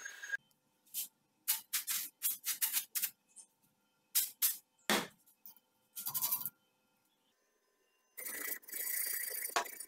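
Steel being worked by hand with an abrasive: a run of short, uneven rasping strokes, a pause of about a second and a half, then a steady rasp starting near the end.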